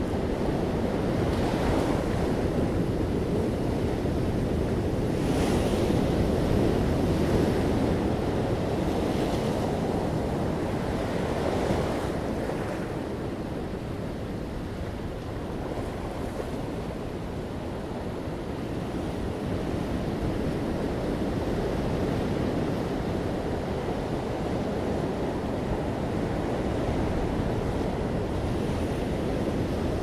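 Ocean surf breaking close by and washing up a sandy beach: a continuous rush of water, with several louder crashes in the first dozen seconds, easing a little midway before settling into a steady wash.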